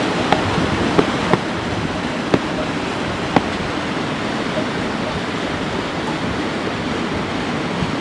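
Mountain river rushing over rocks, a steady noise of fast water, with about five short, sharp clicks in the first three and a half seconds.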